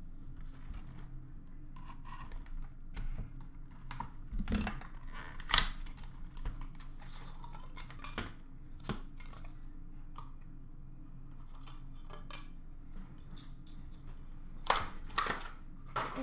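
Trading-card packaging being handled at a counter: a cardboard box and plastic card holders picked up, set down and rustled, giving scattered clicks and scrapes. There are louder knocks about four to six seconds in and again near the end, over a faint steady low hum.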